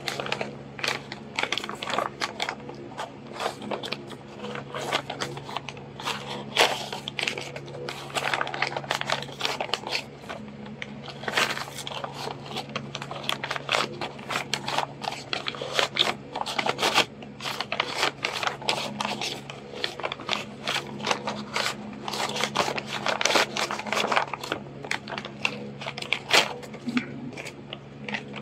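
Paper sheets being handled, folded and creased, giving dense, irregular rustling and crackling, over a steady low hum.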